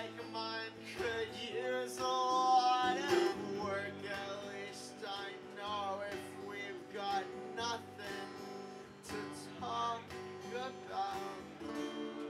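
Acoustic guitar strummed with a neck-rack harmonica playing a melody over it, with held and bending notes, in an instrumental break of a folk-rock song.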